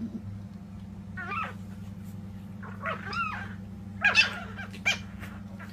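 Kitten meowing, about four short high calls, over a steady low hum.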